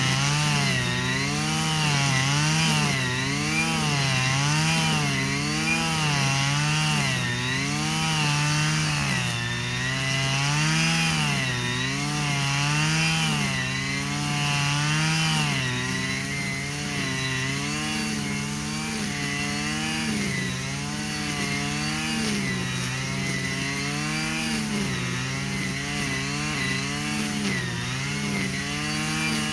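Stihl FS 120 brushcutter's two-stroke engine running unloaded, its pitch rising and falling regularly about once a second, the swings growing smaller about halfway through.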